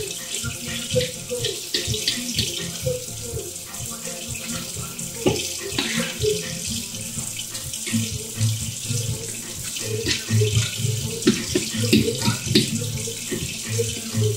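Avocados being mashed in a bowl for guacamole: many short wet squelches and knocks of the utensil against the bowl, over a steady hiss.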